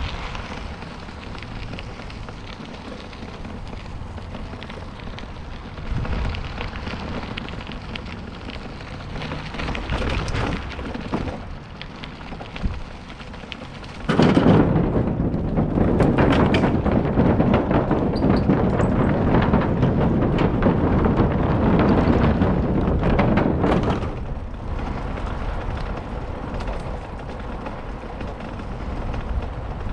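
Wind rumbling on the microphone together with tyre noise from a bicycle riding the trail, with a few sharp knocks and rattles. The rumble gets much louder suddenly about halfway through and drops back about ten seconds later.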